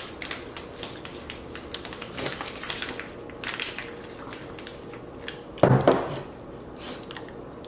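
Light clicking and crinkling of snack packaging being handled, with one louder bump about six seconds in.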